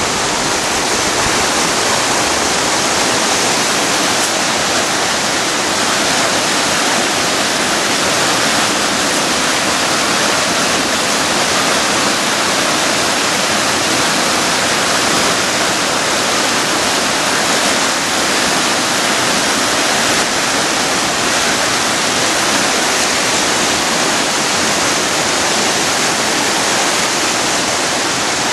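Flooded river rushing fast over rocks in white-water rapids, a loud, steady rush of water with no let-up.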